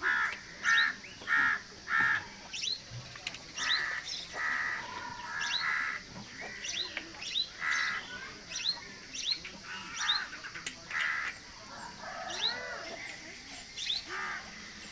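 Birds calling: a run of short calls repeated about every half second at first, then more scattered, mixed with higher chirps.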